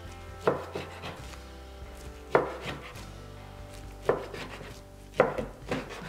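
Chef's knife slicing through seaweed-wrapped gimbap rolls and knocking onto a plastic cutting board: five sharp cuts at uneven intervals, each followed by a little scraping.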